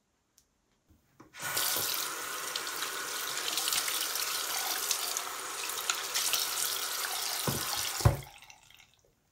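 Water from a single-lever bathroom faucet running into a sink basin, starting about a second in as a steady splashing stream. Near the end the lever is pushed down with a clunk and the flow dies away.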